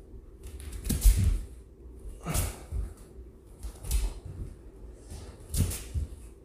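Bare feet landing on a hard floor during a side-to-side lateral shuffle, four times about a second and a half apart, each landing with a sharp breath out.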